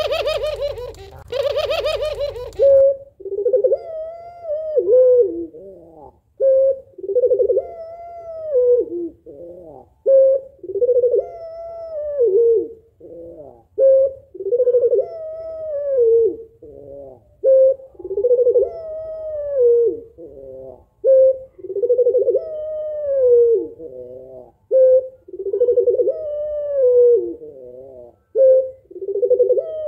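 Female puter pelung, a long-voiced domestic Barbary dove, cooing over and over, about every three and a half seconds, each call a short note followed by a longer arched coo that rises and then falls away; this is the hen's call to a male to get him to coo. The first call, in the first three seconds, is louder and harsher than the rest.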